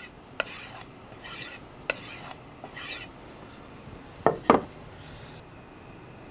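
A 210 mm gyuto's edge drawn across the leather side of a strop: a few soft swishing strokes in the first three seconds, the final stropping stage after sharpening. About four and a half seconds in come two sharp knocks in quick succession.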